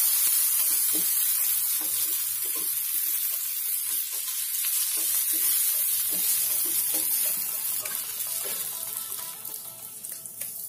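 Chopped ginger and garlic sizzling in hot oil in a frying pan, stirred with a wooden spatula that scrapes and taps across the pan many times. The sizzle is loudest at first and gets quieter toward the end.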